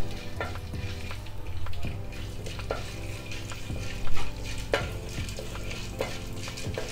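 Whole spices (dried red chillies, cumin, cinnamon, cardamom, cloves and peppercorns) frying in hot sunflower oil in a non-stick pan, sizzling steadily while a spatula stirs and scrapes them, with scattered clicks and taps, the loudest about four seconds in.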